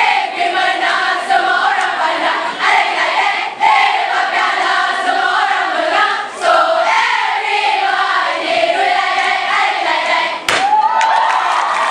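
A large group of girls singing and chanting a cheer together in unison, with crowd noise around them. A sharp click comes near the end.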